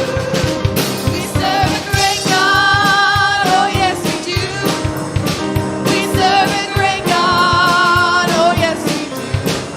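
Live congregational worship music: a lead singer holding long, wavering notes over a band with a steady beat.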